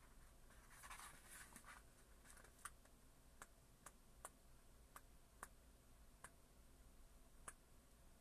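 Faint paper sounds of a book's pages being leafed through: a brief rustle about a second in, then single soft page flicks about every second.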